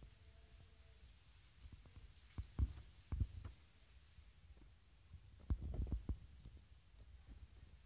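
Low, muffled thumps in a few short clusters, about two and a half, three, and five and a half seconds in, the kind of bumping made by handling a phone while filming. A faint, regular high chirping sounds in the background for the first few seconds.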